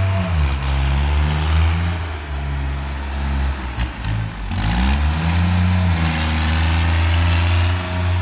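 A compact tractor's diesel engine working hard under load. The engine speed dips about half a second in, sags again near four seconds, then climbs back up in a rising rev.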